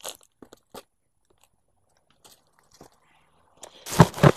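Fingers handling the camera and rubbing over its microphone. There are a few faint ticks, then a loud burst of crackling and scraping about four seconds in.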